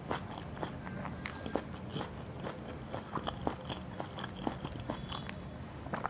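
A person chewing and biting fried chilli fritters (mirchi pakoda) close to the microphone: irregular wet crunches and mouth clicks, several a second, over a low steady hum.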